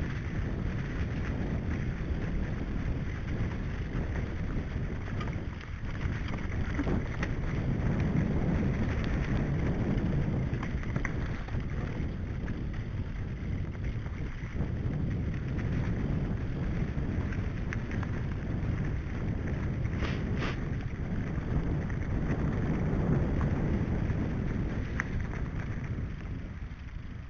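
Mountain bike rolling over a leaf-covered dirt trail: a steady rumble of knobbly tyres on leaf litter and rough ground, with wind buffeting the bike-mounted microphone and occasional knocks and rattles from the bike. The rumble dies down near the end as the bike slows onto grass.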